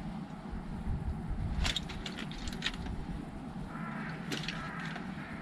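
Steady low outdoor rush of river and wind, with a few light clicks of food and utensils being handled. About two-thirds of the way in, a bird begins calling, faint and continuing.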